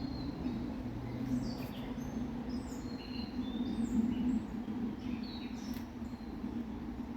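Songbirds chirping in many short calls over the steady low rush of a flowing river.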